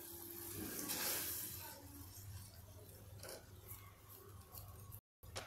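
Silicone spatula stirring sugar, water and ghee in a non-stick kadhai, faint: a swell of swishing and scraping about a second in, then a few light scrapes against the pan as the sugar is stirred until it dissolves.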